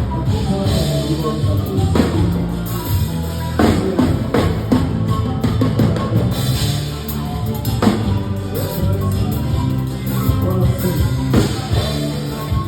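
A live folk band playing an instrumental passage with no singing: a drum kit keeps a steady beat under a sustained bass line.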